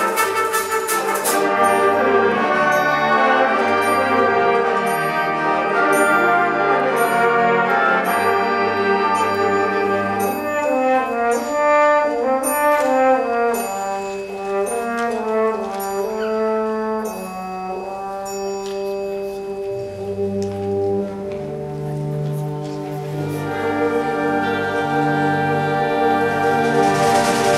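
A high school symphonic band playing, with brass to the fore: French horns, trombones and trumpets over saxophones. A light, steady percussion tick runs under the first half. Midway the band thins to a descending melodic line over low held notes, then fills out again near the end.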